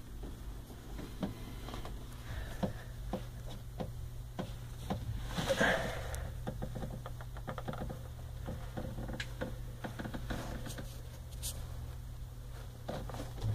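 Scattered light clicks, taps and rustles of handling as someone moves around and reaches in among the engine parts, over a steady low hum, with a louder rustling scrape about five and a half seconds in.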